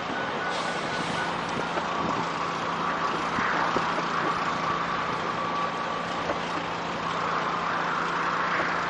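A vehicle driving along a highway: steady rushing road and wind noise with a low engine hum. A thin steady tone sounds through the first half and then fades.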